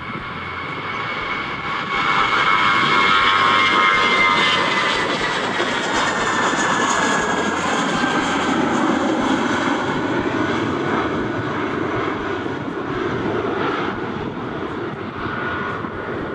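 Airbus A320-232's two IAE V2500 turbofan engines at takeoff thrust as the airliner climbs past: a high whine that slides down in pitch over the first several seconds over a broad jet roar, loudest a few seconds in, then a lower rumble that slowly fades as it climbs away.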